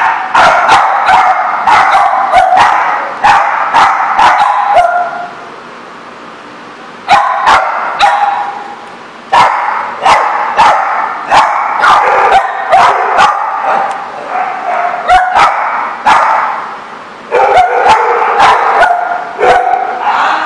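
Small dogs play-barking: sharp, high yappy barks in quick strings of about three or four a second, in three long bouts with brief pauses between.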